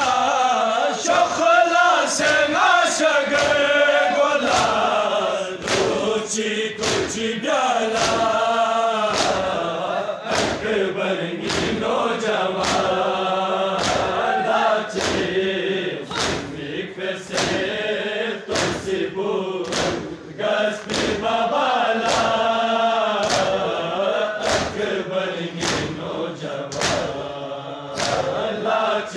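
A group of men chanting a Balti noha (Muharram lament) in unison, with rhythmic chest-beating (matam) strikes, about one and a half a second, keeping time with the chant.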